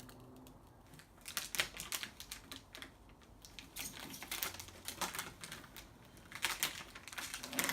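Transfer tape being peeled slowly off a vinyl decal on metal: irregular crackling and ticking as the adhesive lets go, growing busier near the end.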